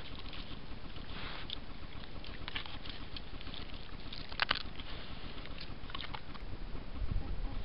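Bushpig rooting and feeding on the ground, heard as scattered faint clicks and rustles over a steady hiss, the sharpest click about four and a half seconds in.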